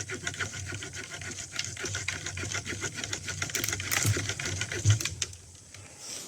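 A Leatherman Surge's folding saw blade cutting dead standing wood with fast, even back-and-forth strokes. The sawing stops about five seconds in.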